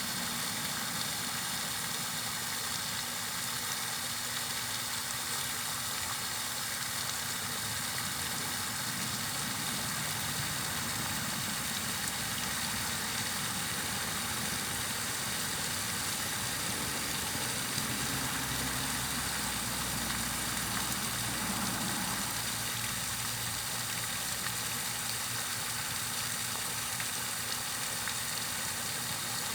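Steady white-noise hiss over a low mechanical hum. The hum swells for a few seconds past the middle, then settles back.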